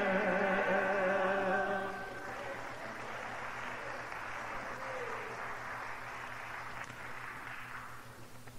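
A gospel worship song's held sung note ends about two seconds in. A softer, grainy wash of sound follows and fades out near the end.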